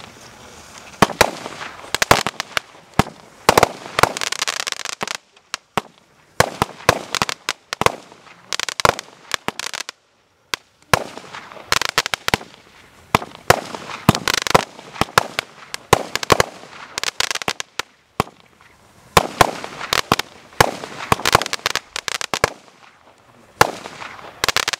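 A Joker Fireworks JF C15-36/01 "Villibon" firework cake (36 shots of 0.6-inch calibre) firing: a long string of sharp pops from shots launching and bursting, coming in clusters with short pauses between them and a hiss between some of the pops.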